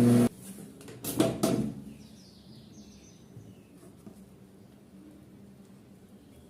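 A microwave oven's steady electrical hum cuts off abruptly shortly after the start, as the oven stops. A few sharp clicks and knocks follow about a second later, then only faint small sounds in a quiet room.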